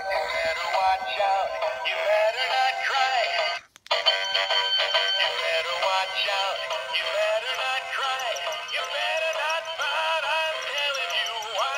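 Small Santa animatronic toy playing a sung song through its tiny built-in speaker, thin and tinny with no bass. The song breaks off for a moment about four seconds in, then carries on.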